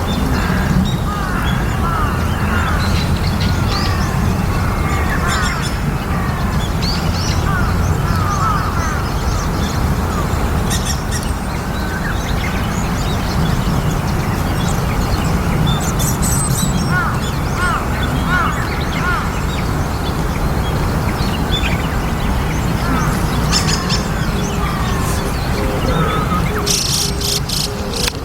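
A flock of white-cheeked starlings calling, a constant stream of short, sliding chirps with now and then a sharper, higher call, over a steady low rumble.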